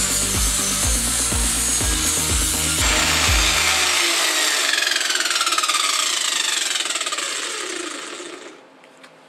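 Electric angle grinder grinding steel held in a bench vise. It is switched off about three seconds in, and its disc spins down with a falling whine that fades out near the end.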